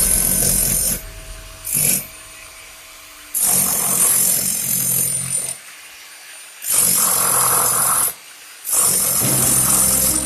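A power tool running in repeated bursts of one to two seconds, with short pauses between, loud and hissy like a saw or grinder cutting.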